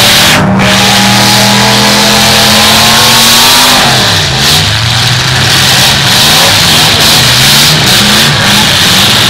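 Demolition derby cars' engines revving hard, very loud. One engine holds high throttle with its pitch climbing slowly for about three seconds, then drops off sharply, and the engines go on rising and falling in pitch as the cars push and shove each other.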